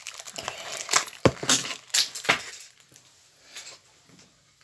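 Hands handling a small toy doll and its plastic packaging: a quick run of sharp clicks and knocks in the first couple of seconds, then softer scattered ticks and rustles.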